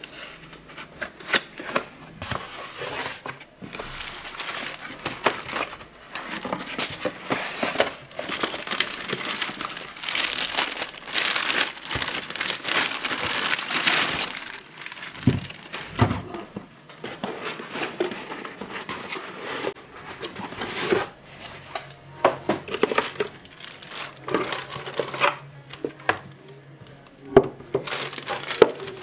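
Unboxing by hand: cardboard box flaps and packing handled, and a plastic bag crinkling as the fishfinder head unit is unwrapped, loudest a third of the way in. Scattered light knocks as parts are set down.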